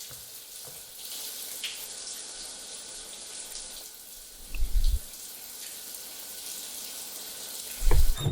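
Water running steadily from taps, a continuous hissing rush. Two short, deep thuds break through it, about four and a half seconds in and again near the end.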